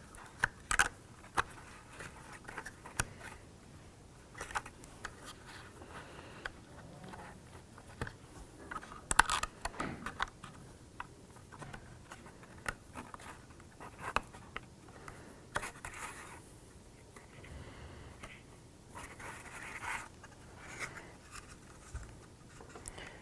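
Small laser-cut kit parts being handled and fitted together: scattered light clicks and taps, with a few brief scrapes as a piece is slid and pressed into place.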